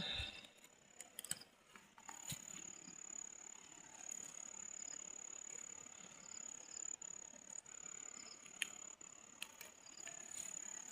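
An insect trilling: one steady high-pitched note that starts about two seconds in and holds unbroken, with a few faint clicks and rustles around it.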